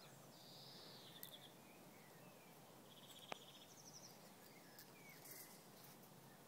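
Quiet garden ambience with small songbirds giving short, fast chirping trills now and then, and a single faint click a little after three seconds in.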